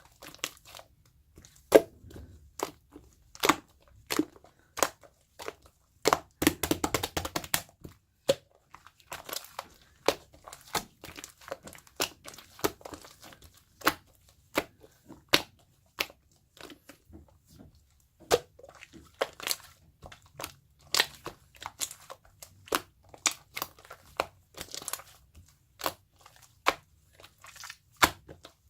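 Slime being squeezed and pressed by hand, giving off sharp, irregular clicks and pops, with a denser run of crackling about six to eight seconds in.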